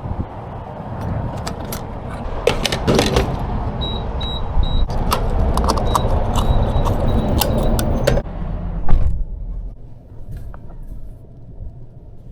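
Rustling and clattering with knocks and a high repeated electronic beep. About nine seconds in comes a loud thump, after which only a low steady rumble remains.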